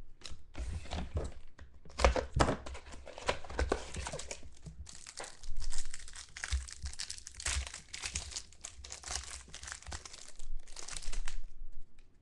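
Plastic wrapper of a trading-card pack being torn open and crinkled in the hands as the cards are pulled out, in a run of irregular crackles that stops about a second before the end.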